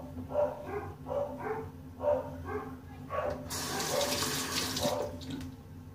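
Dogs barking repeatedly in the background, about two barks a second. Midway a sink tap runs for about a second and a half.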